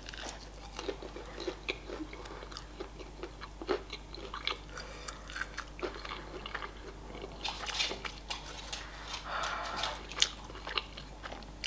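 A person chewing a bite of crispy breaded KFC spicy chicken wing, with scattered soft crunches and small clicks.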